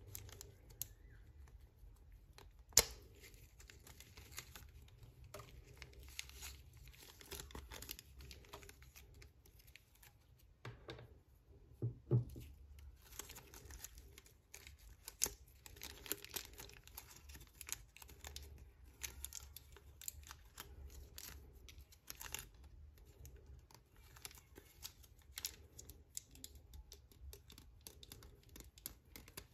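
Thin clear plastic bags being crinkled and peeled off small plastic figure parts by hand: scattered soft crackles and rustles, with a sharp click about three seconds in and a couple of low knocks around twelve seconds.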